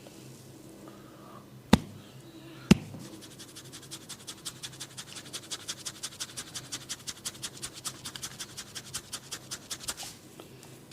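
Two sharp cracks about a second apart, then a comb scratched rapidly through the hair and over the scalp, about five or six scratchy strokes a second, for some seven seconds before it stops.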